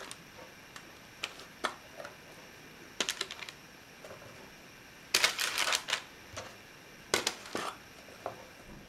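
Scattered light taps and crackles of raw potato slices being set down on baking parchment in a metal roasting tray, with longer bursts of parchment crinkling a little after five seconds and again around seven seconds.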